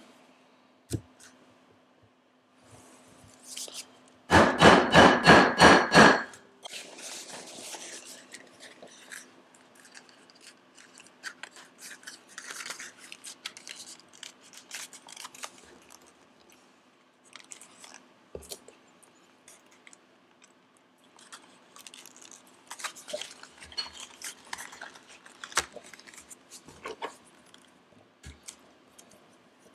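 Leather and small rivet hardware being handled on a workbench: scattered light clicks, taps and scraping over a faint steady hum. About four seconds in, a loud pitched sound pulses about five times a second for roughly two seconds.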